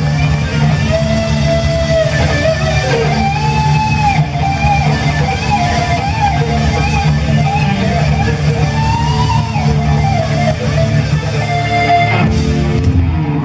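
Live funk band playing: an electric guitar line with bending notes over bass guitar and drums. The music breaks off about twelve seconds in.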